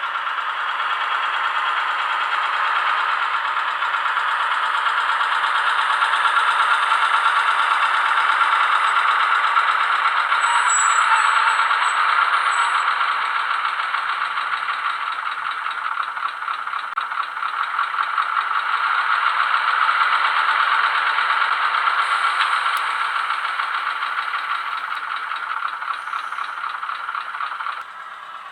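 ZIMO sound decoder's diesel engine sound in a Roco H0 model of an NS 200/300 shunting locomotive: a rapid chugging from the model's small loudspeaker. It swells and eases a couple of times and drops away sharply just before the end.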